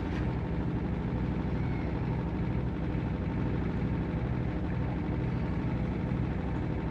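TCL 7 kg automatic washing machine in its spin cycle: the drum spinning at speed, giving a steady motor hum.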